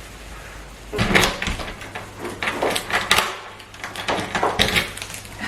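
Irregular clicks and knocks starting about a second in, the handling noise of objects being moved about.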